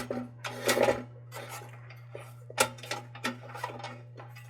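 Sheet-metal parts of a Dietz Blizzard kerosene lantern being handled: a rubbing scrape near the start, then a few sharp metallic clicks. A steady low hum runs underneath.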